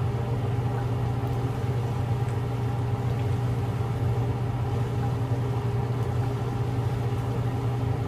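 Steady low machine hum with even overtones, unchanging throughout.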